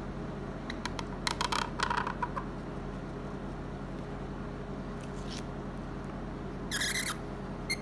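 Calligraphy pen scratching on paper in short strokes, a few scratches about a second and a half in and a louder burst near the end, over a steady low hum.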